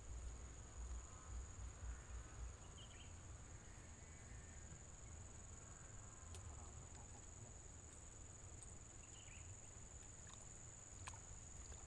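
Faint, steady high-pitched drone of insects, with a low rumble underneath and a few faint chirps.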